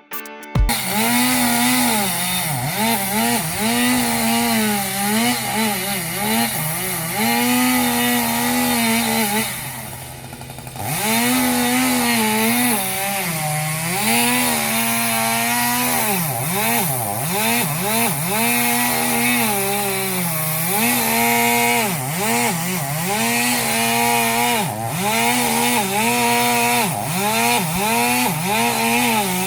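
Chainsaw engine running and being revved up and down over and over. It drops back toward idle for about a second roughly a third of the way through.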